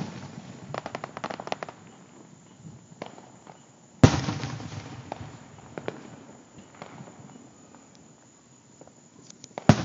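Aerial fireworks shells bursting: a cluster of quick crackles about a second in, a loud boom about four seconds in that fades out slowly, and another sharp bang near the end.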